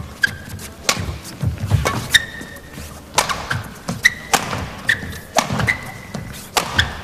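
Badminton rally: sharp cracks of rackets striking the shuttlecock about once a second, shoes squeaking briefly on the court mat, and low thuds of the players' footwork and lunges.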